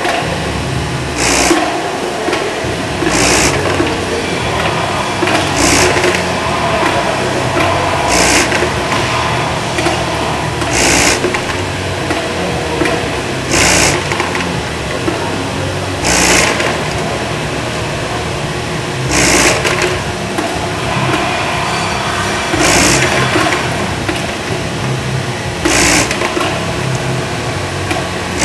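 Elevator hopper for automated parts feeding running steadily, with a short clatter about every two to three seconds, typical of cleats lifting batches of parts and tipping them out.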